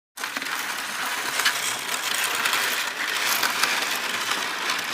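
An object being dragged across a surface: a continuous gritty scraping about five seconds long, with small irregular clicks in it, that starts and stops abruptly.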